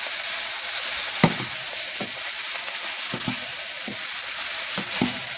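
Fried rice with soy sauce sizzling steadily in a hot wok while it is stir-fried, a utensil knocking against the wok every second or so, with the sharpest clack about a second in.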